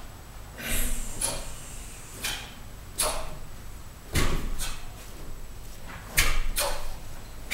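Sharp cracks of taekwondo uniforms snapping with each punch and kick as two people perform a pattern, with feet thudding on the foam mat; the hits come irregularly, about one a second, a couple of them heavier.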